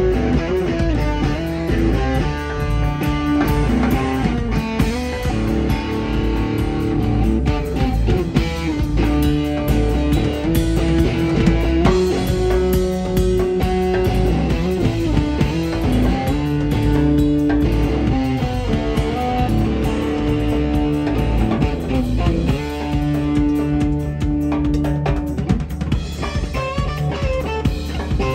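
Live rock trio playing: electric guitar carrying a lead line of long held notes over electric bass and a drum kit.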